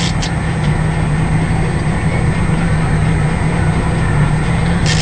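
Boat engine running steadily with a constant low hum, under a fishing rod bent by a hooked walleye.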